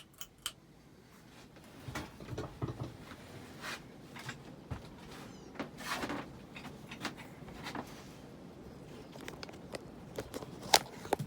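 1991 Hunter Original ceiling fan's oil-bath motor running on high speed, doing just fine, with a low steady hum and scattered light clicks and knocks, the sharpest near the end.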